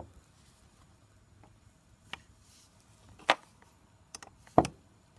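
A few sharp clicks and knocks a second or so apart, the loudest a little before the end: a hand tool on the nut of a brake caliper carrier, metal tapping on metal as the nut is worked.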